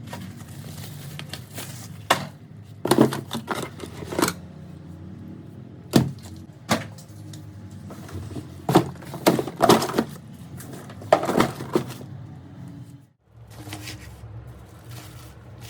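Sharp clicks and taps of small hand tools and iPhone 4 parts against a work surface, about ten at irregular intervals, over a steady low hum that drops out briefly near the end.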